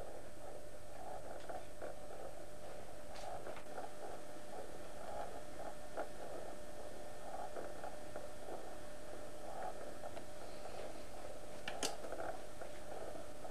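Steady background hum and hiss with no clear event, broken by a faint click about three seconds in and a sharper click near the end.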